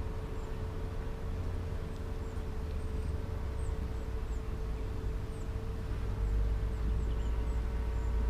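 Steady hum of honeybees around an opened hive, one even pitch throughout, over low wind rumble on the microphone, with faint high bird chirps.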